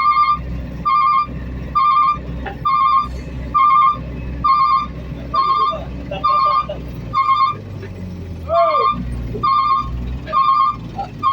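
A heavy machine's backup alarm beeping steadily, about once a second, over the low rumble of its engine.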